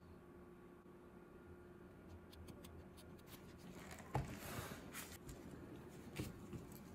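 Quiet handling noises of gloved hands working with silicone resin molds on a tray: faint small clicks, then a sharp knock about four seconds in followed by a brief rustle, and another knock about two seconds later.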